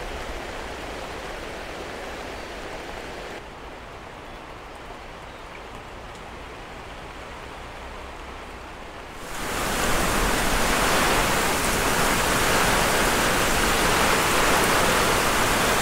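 Tropical rain falling on water and on a moored yacht, a steady hiss. It is lighter at first, then a heavy downpour comes in suddenly about nine seconds in and stays loud.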